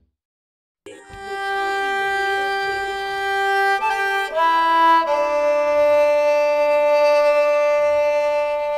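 Slow background music of long held notes that change pitch only a few times, starting about a second in after a moment of silence.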